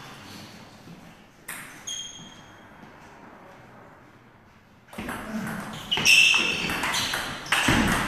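Table tennis ball clicking off paddles and the table. There are two light bounces about a second and a half in, then a quick run of hits in a rally from about five seconds in.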